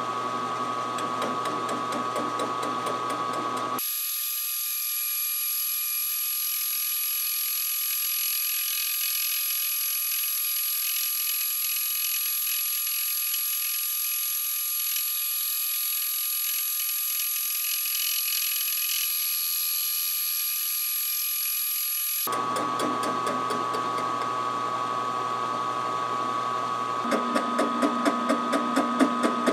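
Round column milling machine running a homemade fly cutter across the flange of a cast iron Cummins 5.9 exhaust manifold, with a steady whine over the noise of the cut. For most of the middle the sound turns thin, with the low end gone. Near the end a rhythmic tapping comes in, about three beats a second.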